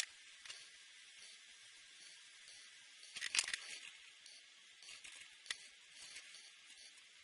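Felt-tip marker strokes scratching and squeaking faintly on paper as a hiss, with a few small clicks and a louder scratchy burst about three seconds in.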